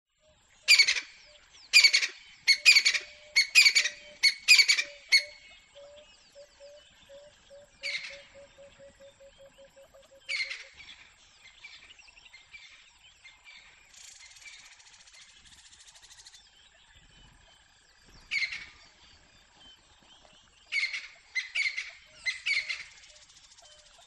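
Francolin calling outdoors: a quick run of about six loud calls, then single calls spaced several seconds apart, then another run of four near the end. Fainter birds sound in the background, one with a low repeated note that speeds up and stops about ten seconds in.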